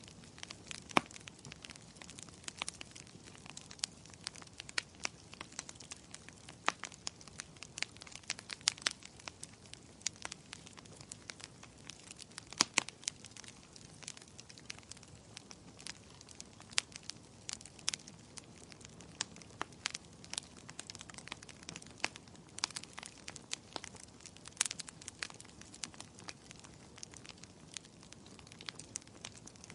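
Burning firewood crackling in a fireplace: frequent irregular sharp pops and snaps over a soft steady hiss of the flames.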